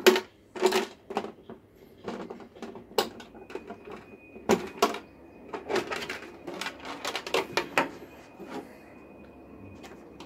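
Stiff plastic body shell of an Arrma Senton 1/10 short-course truck being handled and lifted off the chassis: an irregular run of clicks, taps and plastic crackles.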